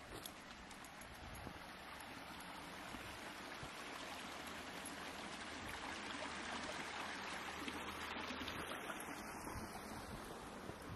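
A small woodland creek rushing over rocks, its steady hiss growing louder as it is approached and easing off slightly near the end.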